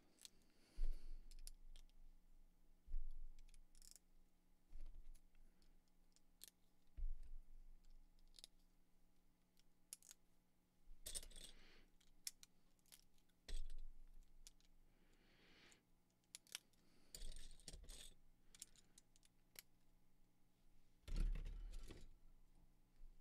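Plastic Lego hinge bricks and clip pieces being handled and snapped together: irregular small clicks and clatter, with a few dull knocks on the tabletop.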